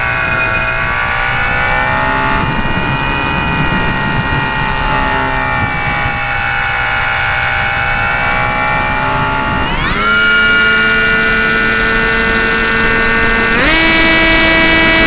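A radio-controlled model aircraft's motor and propeller, heard from a camera on board: a whining drone of several pitches over a noisy hiss. It wavers with the throttle, then steps up in pitch about two-thirds of the way in and again near the end.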